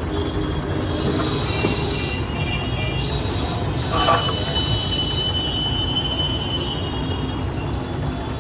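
Busy street din of traffic and crowd, with steady high-pitched tones running through it and a brief clatter about four seconds in.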